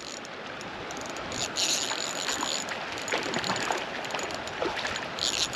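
Fishing reel being cranked, a clicky whirring ratchet sound twice, for about a second from a second and a half in and again near the end, over the steady rush of the stream.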